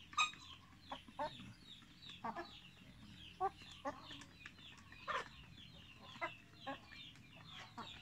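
A flock of Barred Plymouth Rock and crossbred chickens clucking in short, scattered calls, with a few louder clucks at irregular moments.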